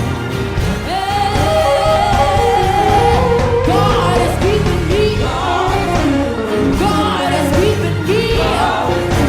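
Gospel-style song: voices singing long, wavering held notes over a band with a steady bass.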